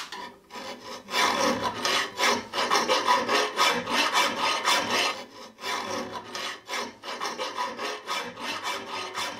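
A hand file scraping the steel of an auger bit in quick, even strokes, about three a second, as the bit is sharpened. The filing picks up about a second in and goes on a little softer after about five seconds.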